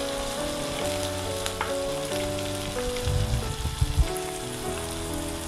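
Flour-coated okra pieces sizzling as they deep-fry in hot oil in a pan, with more pieces dropped in by hand. A soft background melody plays over the sizzle.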